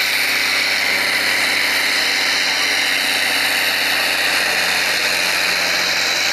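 Farm tractor's diesel engine running hard at a steady pitch under load as it drags a weight-transfer pulling sled, with no change in revs.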